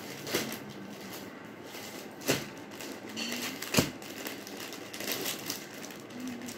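Clear plastic wrapping on folded suit fabric crinkling and rustling as it is handled and pressed flat, with a few sharp taps of hands on the packet, the loudest about four seconds in.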